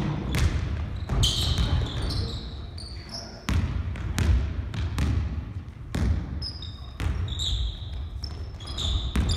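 Basketball bouncing on a wooden gym floor, with short, high sneaker squeaks from players moving and cutting on the court.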